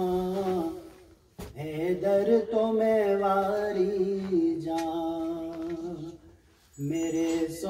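A solo voice singing an Urdu naat without accompaniment, in long, drawn-out phrases with short pauses between them.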